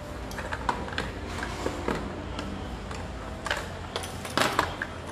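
Scattered light clicks and taps of small hard objects being handled, with two louder clicks about three and a half and four and a half seconds in, over a low steady hum.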